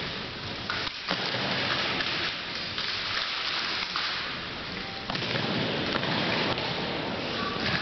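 A steady rushing noise with a few short, sharp clacks of drill rifles being handled during a rifle drill.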